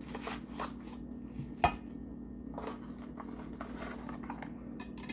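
Unpacking sounds from handling a package: scattered soft taps and rustles with one sharp click about a second and a half in, over a steady low hum.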